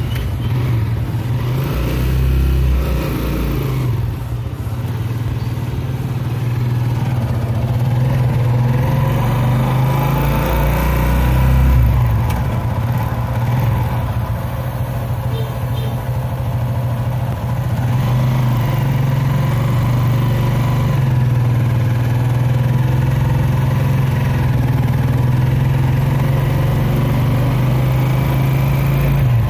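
Motorcycle tricycle's engine running steadily, heard from on board as it rides along a street, the engine note swelling a little about ten seconds in.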